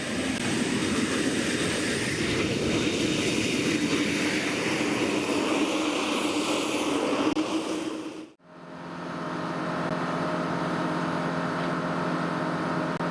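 Jet aircraft engine noise, a loud even rush. About eight seconds in it cuts off abruptly and gives way to a steady drone with several held tones.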